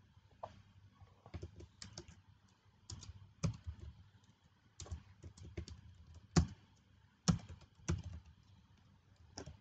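Typing on a computer keyboard: irregular keystrokes, some in quick runs, a few harder taps standing out.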